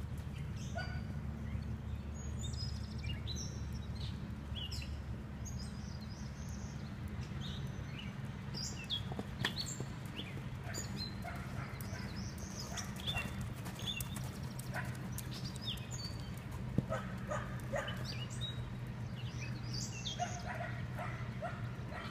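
A dog barking now and then and short, high bird chirps scattered throughout, over a steady low rumble.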